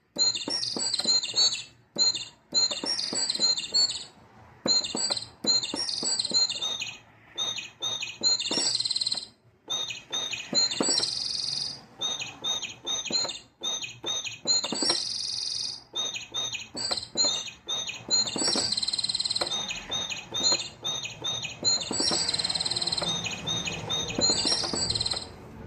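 Bird-chirp sound effects from a small electronic keyboard, triggered key by key in quick rhythmic runs of short high tweets. A few longer held trills come in now and then.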